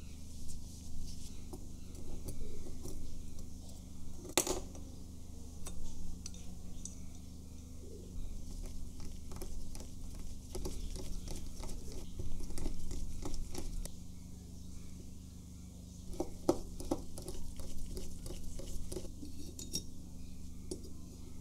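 Small metal clicks, taps and scrapes of a precision screwdriver and tweezers working on the metal body of a 1960 Pentax S3 camera as screws and parts come out, with two louder clicks, one about four seconds in and one near sixteen seconds. A steady low hum lies underneath.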